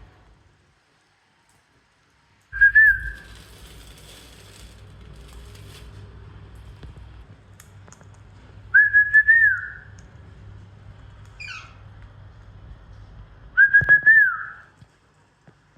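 Parrot whistling three times, each a clear whistle of about a second held on one pitch that lifts and dips at the end, with a short falling chirp between the second and third.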